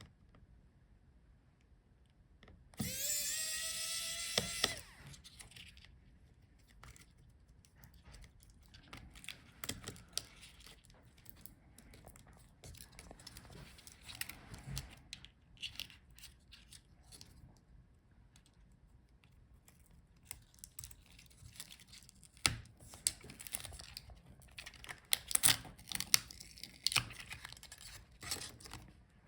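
A small electric screwdriver runs for about two seconds, its motor pitch rising. After that come many light clicks and taps of small screws, plastic clips and parts being handled, with louder clicks near the end.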